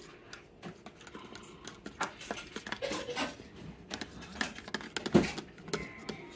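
Metal spoon stirring chocolate milk powder into milk in a plastic cup, clinking and scraping against the cup in irregular clicks, with one louder knock about five seconds in.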